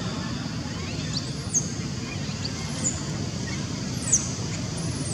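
A bird's short, high-pitched chirps, each falling sharply in pitch, four times about a second or so apart, over a steady low outdoor rumble.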